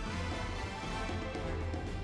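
Background music with steady held tones and a strong low beat.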